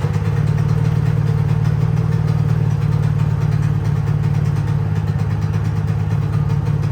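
Honda EU3000is inverter generator's single-cylinder four-stroke engine running at a steady, even drone. The generator smokes badly and is not making power, and the owner calls the sound pretty bad.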